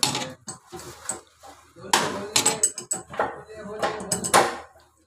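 Pliers clinking and scraping on steel as the top nut of a soda machine's solenoid valve is tightened: a string of sharp metallic clinks, the loudest about two seconds in and near the end.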